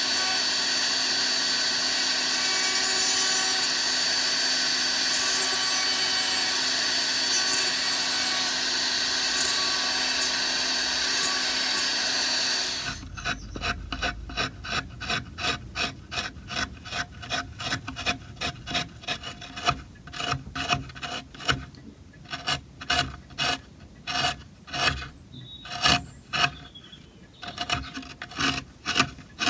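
A rotary carving handpiece with a small burr runs with a steady high whine as it grinds into walnut. About thirteen seconds in it stops and gives way to a hand carving gouge paring the walnut, a quick series of short scraping cuts.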